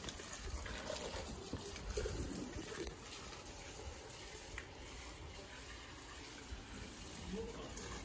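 Water spraying steadily from a garden hose onto strawberry plants and soil.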